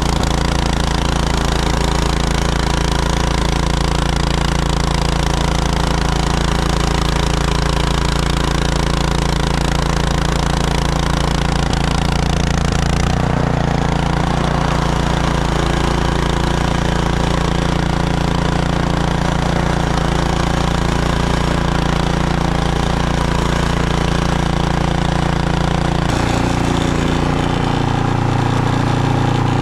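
Snowblower engine running steadily, still cold and not yet fully warmed up. Its note changes about halfway through and again near the end.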